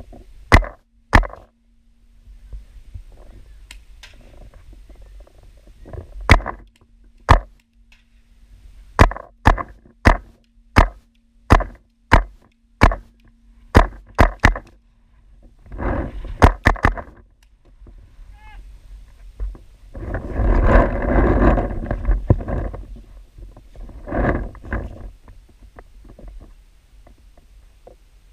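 Paintball gunfire: about twenty sharp cracks, some single and some in quick runs, mostly in the first half, then a longer stretch of rustling noise about twenty seconds in.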